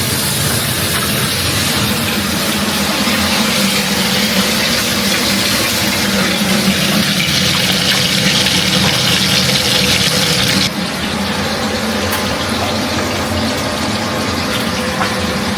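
Water running from a kitchen tap over a steady low hum, the running water shut off suddenly about eleven seconds in while the hum carries on.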